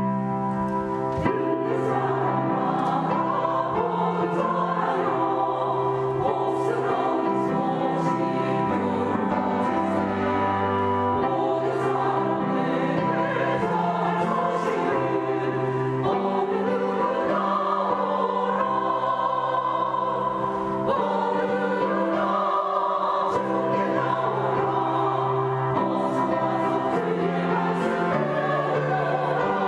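Church choir singing a Korean hymn in parts, with instrumental accompaniment holding sustained chords underneath.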